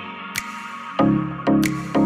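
Music: pitched notes struck about twice a second from one second in, over a held higher tone, with a couple of sharp clicks.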